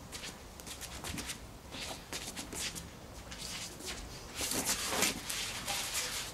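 Quick, uneven scuffing and shuffling of footwork on stone patio paving, mixed with swishes of clothing and of a short polypropylene bat being swung through strikes. A longer, louder scuff-and-swish comes about four and a half seconds in.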